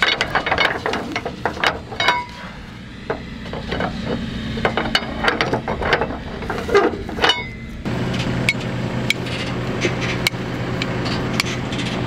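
Flatbed trailer strap winch being turned tight with a winch bar: a run of sharp ratchet clicks and metal knocks as the cargo strap is tensioned over the hay bales. About eight seconds in, a steady engine hum comes in underneath.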